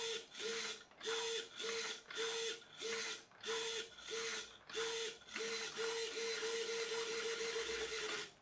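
Small hobby micro servo whirring as it swings the RC boat's rudder back and forth while being function-tested. It moves in short buzzing bursts about two a second, which run almost together in the last few seconds before stopping abruptly.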